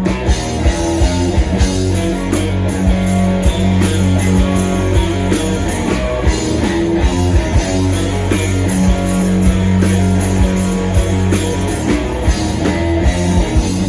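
Live band playing the instrumental opening of an upbeat, rocky song, with guitar, bass and a drum kit keeping a steady beat.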